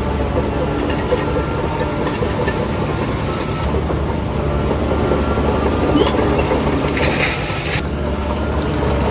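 Shantui DH17C3 crawler bulldozer working fill: its diesel engine runs steadily under load over a continuous clanking rattle of the steel tracks. A short burst of hiss, under a second long, comes about seven seconds in.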